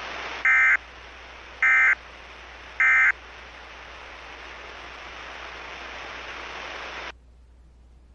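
Emergency Alert System end-of-message signal: three short bursts of SAME data tones about a second apart, marking the end of the alert. They play over a steady hiss of static that cuts off suddenly near the end.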